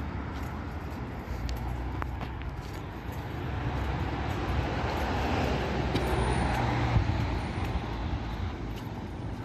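City street traffic: cars driving by on the road with a steady low rumble, one growing louder and passing about halfway through.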